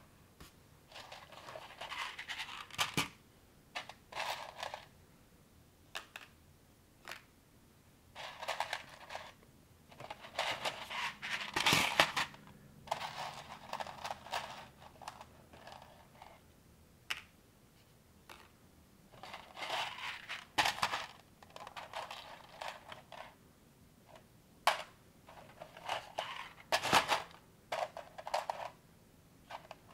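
Plastic Technic-style building parts from a knock-off LEGO set being rummaged through and handled. Bursts of rattling and scraping alternate with sharp clicks as pieces are picked up, pressed together or set down. The loudest clicks come about halfway through and again near the end.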